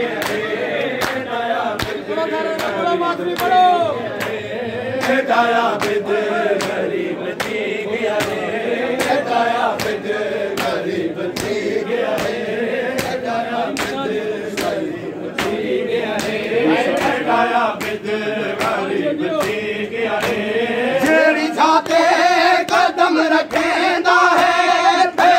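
Crowd of men chanting a noha (Shia lament) in unison behind the reciters, over a steady rhythm of sharp slaps of hands beating bare chests in matam. The chanting grows louder and higher near the end.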